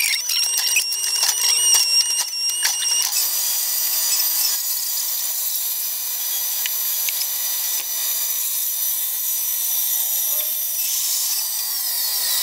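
Portable band sawmill cutting a cherry log to take off the first slab: a steady high whine of several fixed tones. Clicks and knocks come through over the first three seconds.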